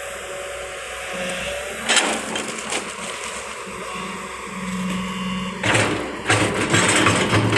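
Long-boom excavator running, its engine and hydraulics giving a steady low hum, with loud noisy rattling bursts about two seconds in and again near the end.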